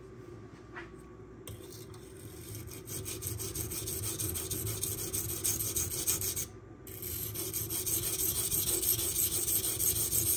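Magnacut steel knife blade being stroked back and forth on a silicon carbide sharpening stone, a rapid, even scraping. It starts faint, grows louder after a couple of seconds, breaks off briefly past the middle and resumes louder, sounding coarser as the stone dries out for lack of lubrication.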